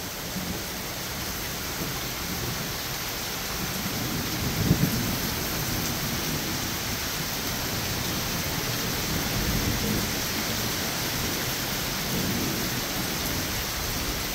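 Heavy rain pouring steadily onto a paved path and a wet wooden porch, with low rumbles of thunder now and then, the strongest about five seconds in.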